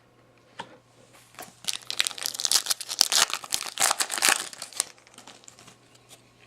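Foil wrapper of a Topps Chrome football card pack being torn open and crinkled: a dense run of crackling that starts about a second and a half in and lasts some three seconds, after a single small click.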